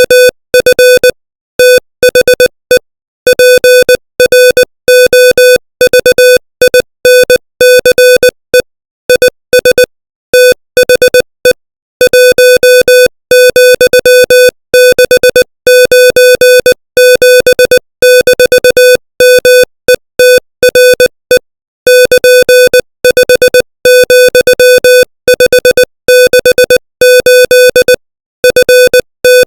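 Morse code sent at 20 words per minute: a single steady mid-pitched tone keyed on and off in short dots and longer dashes, with brief gaps between letters and longer pauses between words.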